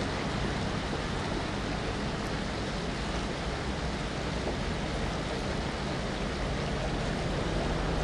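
River water rushing steadily down a small cascade over rocks and concrete blocks.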